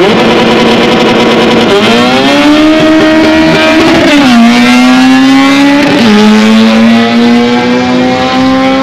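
Race car engine at full throttle, accelerating hard, its pitch climbing slowly and dropping sharply at gear changes about four and six seconds in.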